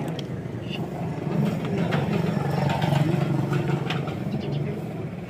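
An engine running steadily at low revs, with a few light clicks.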